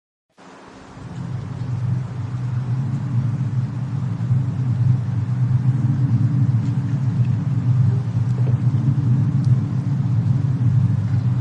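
Fireplace and snowstorm ambience: a steady low rumble with a few faint crackles. The sound cuts out at the very start and fades back in over about a second and a half.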